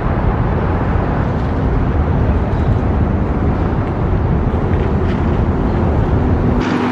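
Steady rumble of road traffic crossing the concrete highway bridge overhead, heaviest in the low end.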